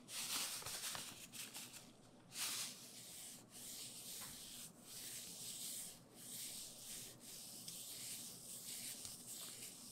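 Salt being rubbed into a raw salmon steak by a hand in a black plastic glove: a gritty, scratchy rubbing in repeated strokes, loudest in the first two seconds.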